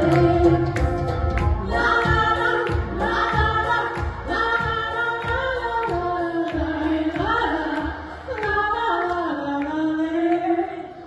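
Closing bars of a song: a backing track with a steady beat under a sung melody line, dying away near the end.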